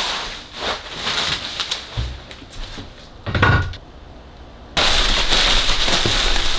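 Knocks and clatter of a plastic gas jug being handled and tried in a metal hitch carrier, with a heavier thump about three and a half seconds in. From about five seconds in comes a steady crinkling rustle of plastic packing wrap.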